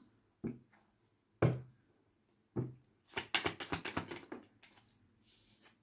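Tarot deck being handled and shuffled: three soft knocks about a second apart, then a quick run of card clicks lasting about a second, and a faint brief rustle near the end.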